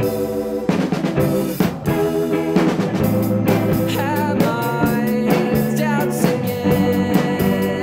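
Indie rock song from a band with drum kit, bass and guitar, with a steady beat of drum hits under held notes and some bending higher notes around the middle.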